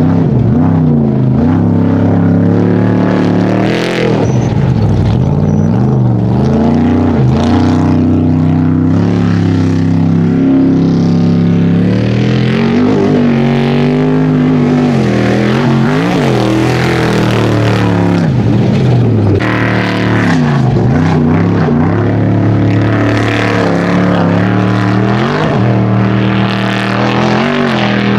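Trophy Truck race engines running hard and loud, their pitch dipping and climbing again every few seconds as the trucks shift, rev and pass.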